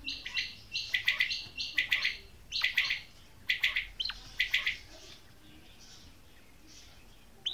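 Caged female quail calling: rapid groups of short, high notes repeated for about the first five seconds, then stopping.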